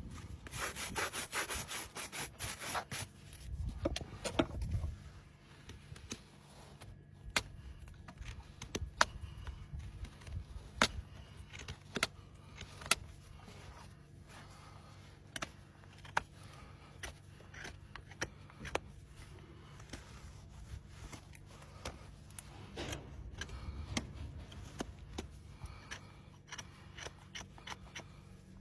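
Horse hoof being trimmed: a farrier's rasp scrapes across the hoof wall in quick strokes for the first few seconds, then scattered sharp clicks and snaps follow as the work goes on.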